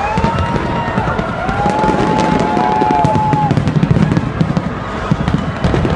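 Large aerial fireworks bursting in quick succession: dense sharp crackling over a continuous low booming rumble. Two long whistle-like tones sound in the first half.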